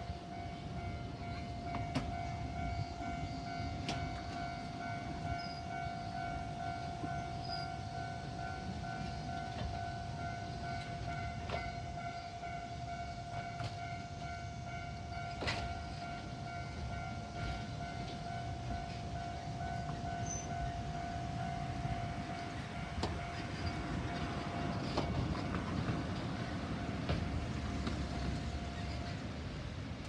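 A level-crossing warning bell rings in an even, repeating tone and stops near the end. Under it runs the low rumble of the Ikoma Cable funicular cars rolling along the rails, with a few sharp clacks.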